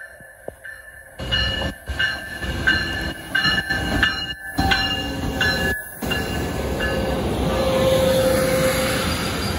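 Siemens Charger diesel locomotive and its passenger cars rolling into the platform and passing close by. The rumble grows loud about a second in, and a steady squeal from the wheels or brakes sets in during the second half as the train slows.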